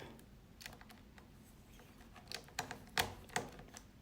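A few light clicks and taps, the loudest about three seconds in, from a magnetic Phillips screwdriver working the small bottom-cover screws of a laptop.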